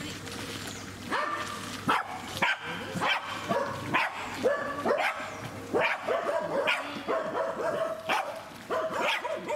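Pembroke Welsh corgi barking in a run of short, sharp barks, about two a second, starting about a second in.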